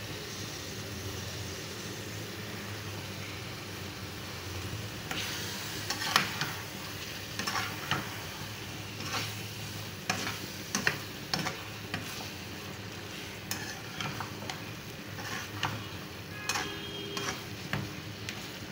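Chicken karahi sizzling in the pan as cream is stirred in, with a slotted metal spatula scraping and clicking against the pan. The steady sizzle is there throughout, and frequent sharp scrapes and taps from the stirring start about five seconds in.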